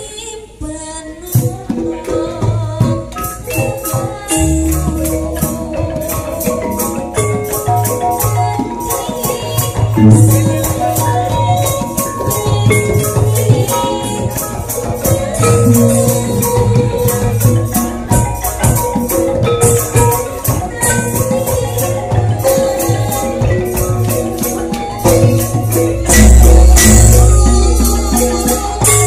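Javanese gamelan ensemble playing loudly, the bronze metallophones and kettle gongs struck hard over drums, with a fast steady ticking on top. Deep low booms come in now and then, the loudest near the end.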